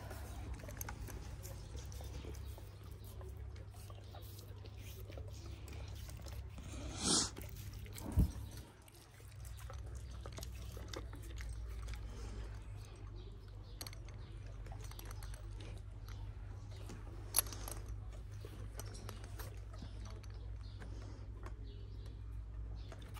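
Kangal dogs chewing and moving about, with faint scattered rustles over a steady low hum. A loud short noise comes about seven seconds in, then a thump, and a single sharp click later on.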